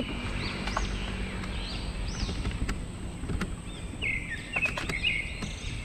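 Birds chirping repeatedly, short high arching calls, over a steady low rumble.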